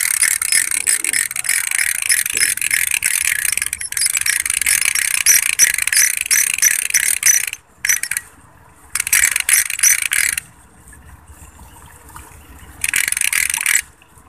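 Spinning fishing reel clicking and ratcheting as line is taken and wound in, with a fish on the line. It runs steadily for several seconds, stops, then comes back in two short bursts.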